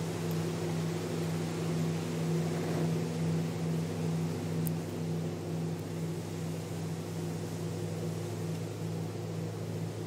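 A steady low mechanical hum made of several steady tones over a faint hiss, unchanging throughout.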